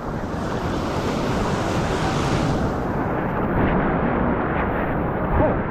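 Whitewater rapid rushing around a raft, a steady wash of noise, with a louder hiss in the first three seconds.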